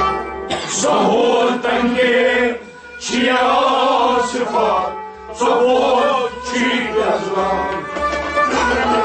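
Harmonium playing the melody of a Kashmiri Sufi song in phrases, with brief dips between them about three and five seconds in.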